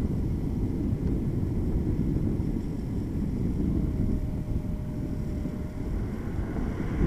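Steady low rumble of wind buffeting the microphone of a camera on a moving road bike, mixed with road noise from the ride.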